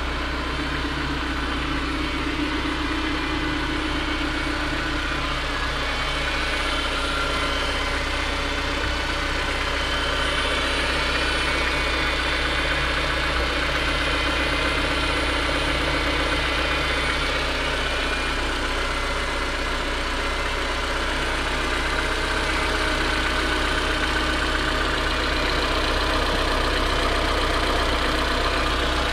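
A 1991 Honda Civic's 16-valve four-cylinder engine with dual-point fuel injection idling steadily.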